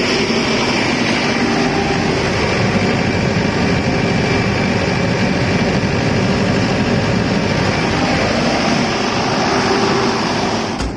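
Isuzu 4BD1-Z four-cylinder diesel engine of a 50 kVA silent-canopy generator set running steadily at constant speed. A faint steady whine runs above the engine noise.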